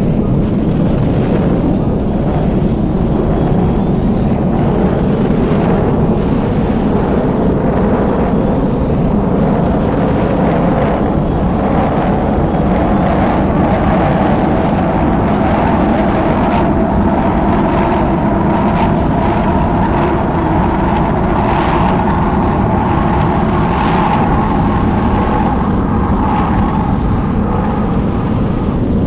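Jet engine running steadily: a loud, even rumble with a faint whine above it.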